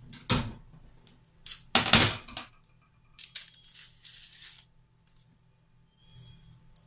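A banana being peeled: short tearing and rustling noises, the loudest about two seconds in, with smaller ones later.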